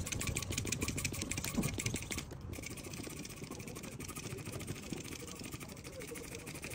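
Small electric balloon pump running with a steady buzz as it inflates a balloon, a little louder for the first two seconds.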